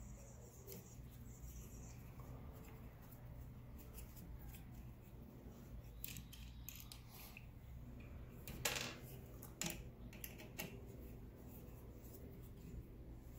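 Folding hex key set turning the bow sight's mounting bolts loose: scattered small metallic clicks and ticks, the sharpest about nine seconds in, over a faint steady low hum.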